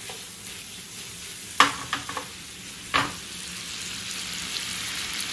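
Bacon strips sizzling steadily in oil in a frying pan, with a few sharp knocks about one and a half and three seconds in.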